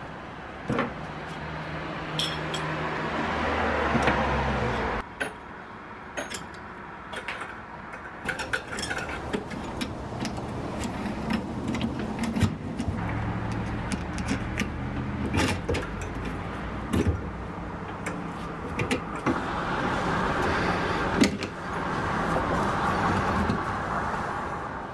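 Small steel leghold trap being reassembled by hand: repeated sharp metallic clicks and clinks of its springs, jaws and chain being worked, partly in a bench vise. Behind them runs a steady low hum with noise that swells twice and drops off abruptly about five seconds in.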